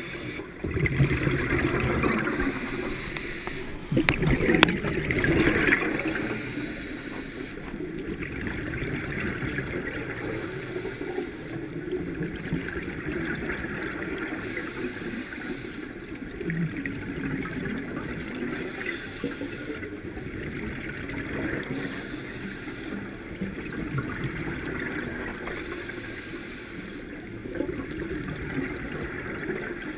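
Continuous water noise, with a sharp knock about four seconds in.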